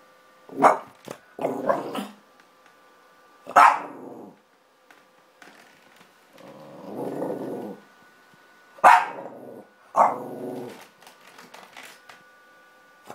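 French bulldog barking and growling in play: sharp barks at irregular intervals, each running on into a growl, with a longer low growl about halfway through. The dog is in a play bow, inviting play.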